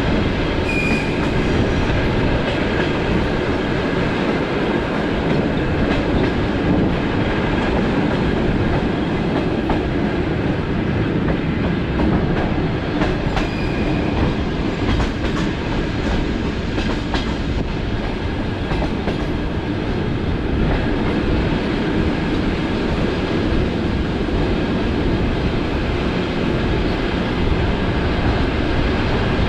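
DC electric suburban train running at speed, heard from inside the carriage: a steady rumble of wheels on rail with occasional clicks over rail joints.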